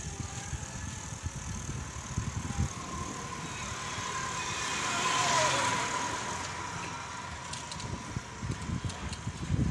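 A motor vehicle passing close by: its noise swells to a peak about five seconds in and then fades, with a whine that drops in pitch as it goes past. A low wind rumble runs underneath.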